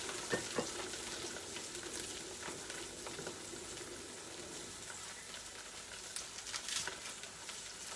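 Spring onions sizzling in oil in a stainless steel frying pan: a steady frying hiss with scattered small crackles and pops.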